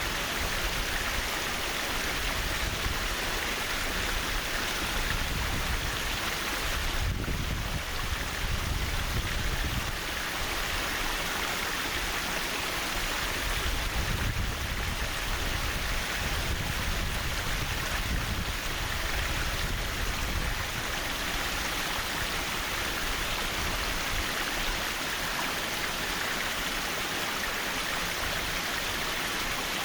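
Mountain stream rushing and babbling over rocks, a steady water noise with a low rumble that swells and ebbs.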